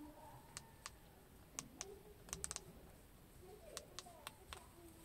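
Plastic buttons of a handheld TV remote control clicking as they are pressed, about a dozen faint clicks in irregular groups, with a quick run of four around the middle.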